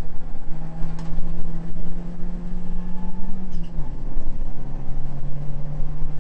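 Mitsubishi Lancer Evo 7's turbocharged four-cylinder engine running hard under load, heard from inside the stripped race-car cabin. Its pitch drops suddenly once, about three and a half seconds in, then climbs slowly again; a sharp click comes about a second in.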